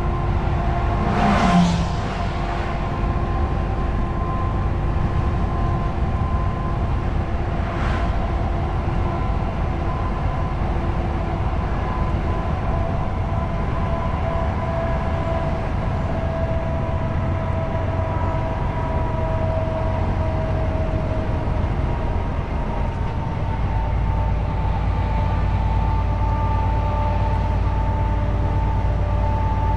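DAF truck's diesel engine droning steadily inside the cab, with tyre and road noise. An oncoming coach whooshes past about a second in, and the low engine rumble grows heavier about 23 seconds in.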